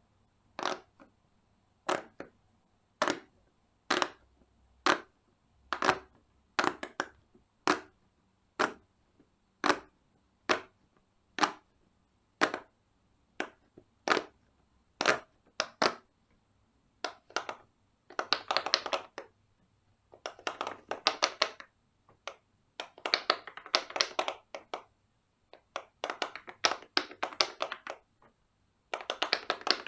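Silicone bubbles of a large pop-it fidget toy being pressed and popping. First come single pops about once a second, then quick runs of many pops in rapid succession.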